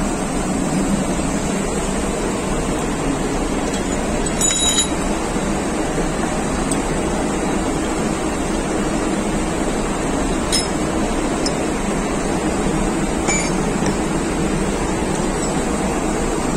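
Steady mechanical hum of background machinery, with three light metallic clinks of steel fuel-injection-pump parts (plunger, barrel and pump housing) being handled and knocked together, spread through the stretch.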